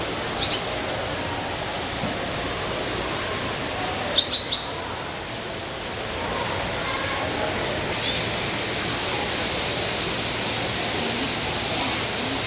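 Short high bird chirps, a pair about half a second in and three quick, louder ones about four seconds in, over a steady rush like running water with a faint murmur of people.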